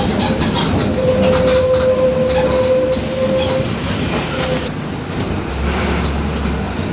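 Cabin of a moving Mercedes-Benz OF-1721 city bus, with body and fittings rattling. A steady whine from the differential, the noise its owner calls growling, sounds from about a second in until past halfway. A low rumble comes up near the end.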